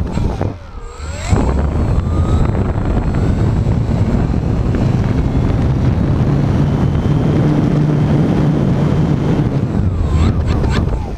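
A foam RC airplane's motor and spinning propeller running at speed, with wind rushing over the onboard camera. About half a second in, the throttle briefly drops with a whine sweeping down, then comes back up a second later.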